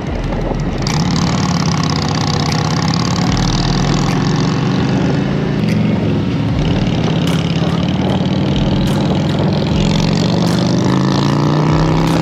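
Motorcycle engine running steadily at cruising speed, with a constant rush of wind over the microphone.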